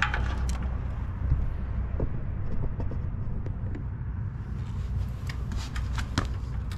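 Steady low rumble, with a few faint clicks and rustles, more of them after about four and a half seconds, as an oxygen sensor is threaded by hand into a catalytic converter and its wire is handled.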